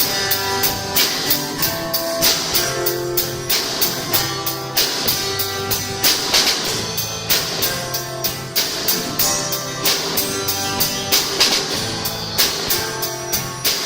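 Instrumental gospel music: guitar over percussion keeping a steady, even beat.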